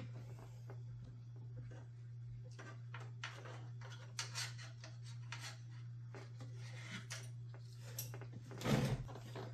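Scattered light clicks and scrapes of computer case parts being handled and fitted, with a louder knock about a second before the end, over a steady low hum.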